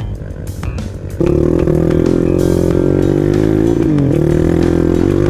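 A dirt bike's engine heard up close from an onboard camera, held at steady revs while riding over loose rock, with a brief dip in revs about four seconds in. It cuts in about a second in over background music and a more distant motorcycle.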